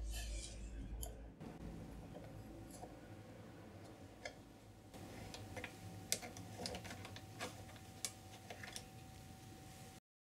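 Light clicks and taps of a glass microscope slide being set down on a 3D-printed microscope stage and slid into place, scattered over several seconds with the sharpest click about six seconds in.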